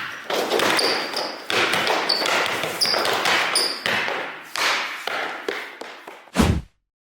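Strong gusty wind rushing over the microphone in surges during outdoor basketball play, with several short high sneaker squeaks in the first half and a heavy thump near the end.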